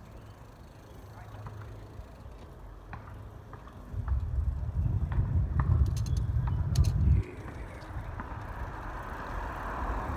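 Riding noise from a bicycle on a street: a steady low rumble of road and air noise, loudest in the middle where it cuts off suddenly, with a few light clicks.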